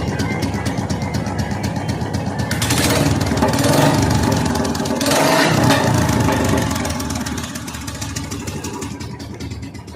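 Royal Enfield Bullet single-cylinder engine running with rapid, even firing pulses, blipped up twice, about two and a half and five seconds in, then settling back toward idle. It is firing and popping at the head, a fault the mechanic puts down to a broken cylinder-head stud at the exhaust.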